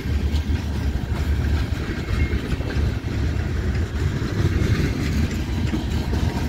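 Freight train cars, covered hoppers and tank cars, rolling steadily through a level crossing: a continuous rumble with wheels clacking over the rails.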